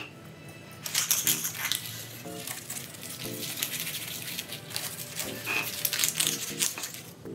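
A small spreader dipped in a tin of glue, with a sharp click at first as it touches the tin. Then from about a second in it scrapes back and forth across a rusty tabletop in many quick gritty strokes, spreading the glue.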